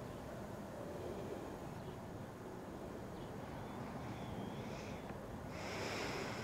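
A slow, heavy breath, with a rushing exhale near the end, over a low steady background with a few faint high chirps.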